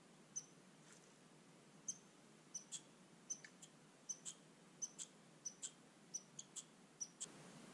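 A small bird giving short, high chip calls at uneven spacing, often in pairs, over near silence.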